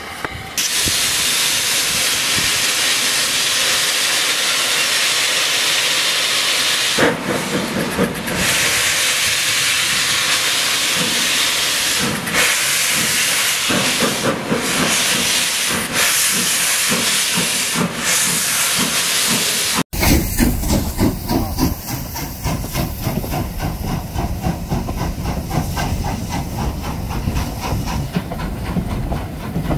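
Lambton Colliery No. 29, an 0-6-2 tank steam locomotive, setting off with a loud hiss of steam from its cylinders. After about seven seconds its exhaust beats start and come in quick, uneven bursts as the driving wheels slip. After a cut, its coaches clatter past close by over the rail joints.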